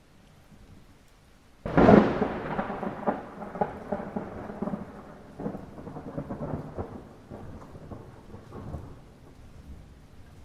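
Light rain falling steadily, broken about two seconds in by a sudden thunderclap: a sharp crack, then a crackling, rolling rumble that fades away over the next several seconds.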